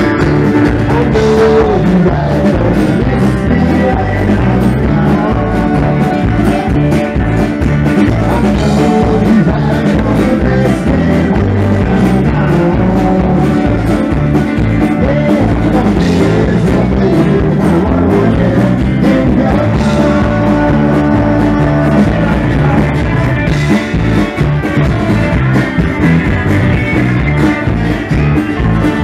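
Live southern rock band playing a steady, loud passage on electric and acoustic guitars, bass guitar and drum kit.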